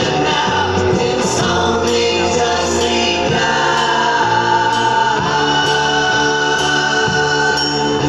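A Christmas song played over a PA system, with a group of voices singing along.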